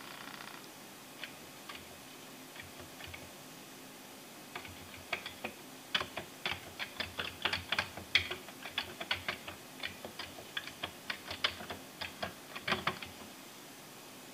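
Computer keyboard keys clicking: a few scattered keystrokes, then fast, irregular typing for several seconds that stops shortly before the end.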